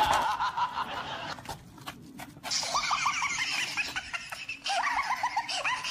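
A person laughing in quick runs of short, high-pitched "ha" sounds, starting about halfway through and again near the end.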